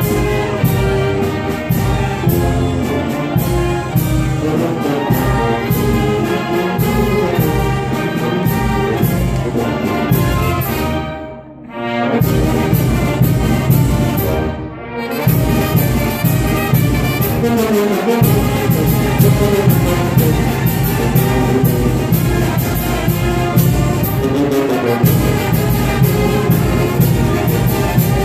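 A brass band playing dance music with a steady beat, trumpets and trombones to the fore. The music drops away briefly twice a little before and after halfway through, then comes back in.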